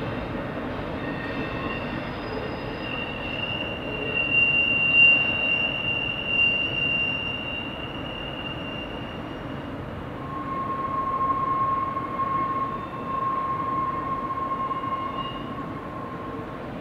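Long double-stack container train rolling along curving track, its cars rumbling steadily while wheels squeal. A high squeal runs from about three seconds in, then gives way to a lower one from about ten seconds in until near the end.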